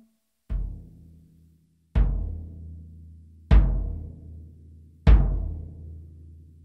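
22-inch bass drum of a Sakae Trilogy kit kicked four times with a felt pedal beater, about a second and a half apart, the first stroke softer. Each stroke rings on with a long low tone from the open coated batter head, tuned medium-high, with a felt strip muffling only the resonant head.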